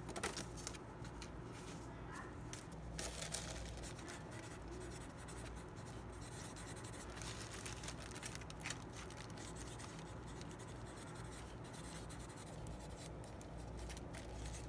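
Felt-tip marker writing on paper card stock, faint scratchy strokes.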